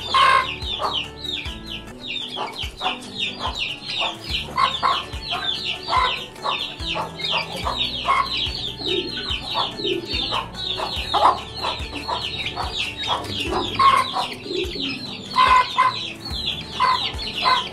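A brood of young chicks peeping without pause, a rapid string of high, falling cheeps, with a hen clucking lower now and then among them.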